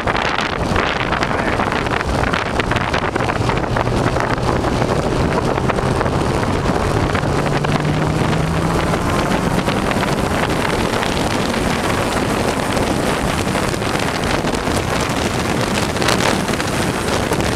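Wind and road noise rushing over the microphone of a car moving at speed, with an engine's hum rising in pitch through the middle as it accelerates.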